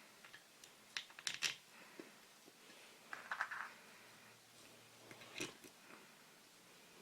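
A few small clicks, taps and a brief scrape, as of small parts being handled during a repair of an aquarium air blower. They come in three short clusters: about a second in, about three seconds in, and about five and a half seconds in.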